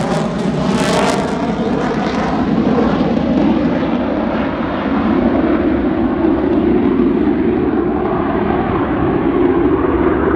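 Twin-engine F-15 fighter jet roaring on takeoff and climbing away. A sweeping, rippling hiss fades in the first couple of seconds, and the sharp high end keeps dying off as the jet recedes, leaving a steady low rumble.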